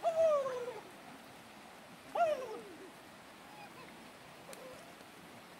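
A young child's voice giving two wordless, falling cries, one at the start and one about two seconds in, over the steady hush of running stream water.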